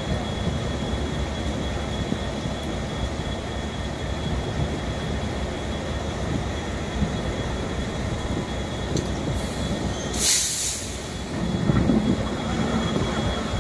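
Floodwater rushing through a railway bridge opening, a steady rushing noise with a faint high tone running under it. A short burst of hiss comes about ten seconds in, and lower rumbling swells near the end.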